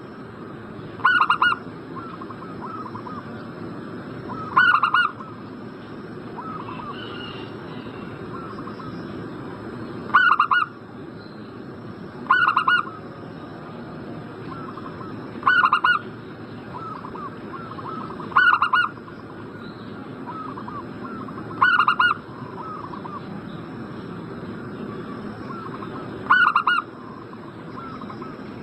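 Zebra dove (perkutut) cooing: about eight loud, short trilled coos a few seconds apart, with fainter coos in between.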